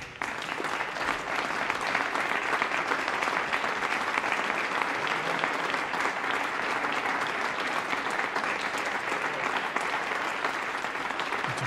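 Audience applauding steadily, a dense even clapping that starts just as the set is announced over and holds level throughout.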